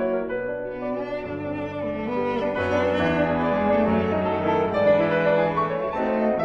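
Instrumental background music of slow, long-held notes that shift chord every second or so, with bowed strings to the fore and piano beneath.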